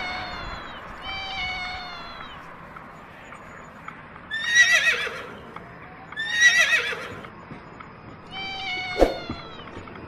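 A cat meowing twice, then a horse whinnying twice in louder, quavering calls, and one more shorter call near the end.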